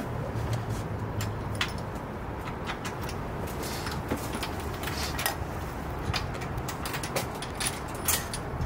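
Scattered light clicks and clinks of small pit-bike parts being handled, over steady outdoor background noise with a low hum that fades out about a second and a half in.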